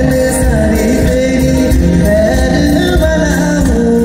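Live band music amplified through a stage PA, with a man singing over keyboard and drums.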